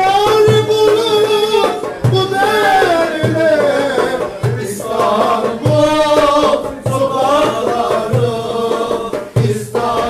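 Live Turkish folk music: a man singing with a violin, over a darbuka (goblet drum) beating a steady rhythm of low strokes.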